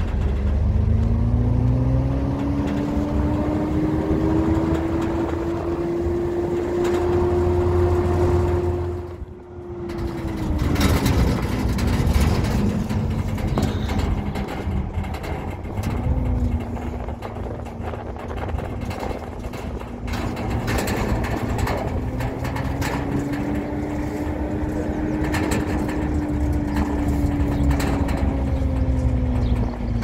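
A vehicle's engine and road rumble, heard from inside the cab while driving. The engine note climbs, dips briefly about nine seconds in, then pulls on at a lower pitch, rising and easing again, with occasional knocks from the rough road.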